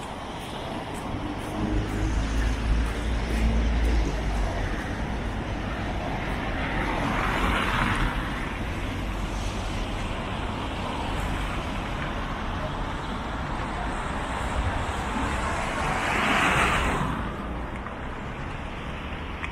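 Road traffic on a wet road: cars passing with tyre hiss over a steady low rumble, two of them going by close, about a third of the way in and again near the end.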